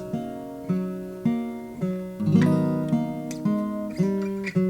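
Acoustic guitar music: slow plucked chords, a new one about every half second, each ringing and fading away.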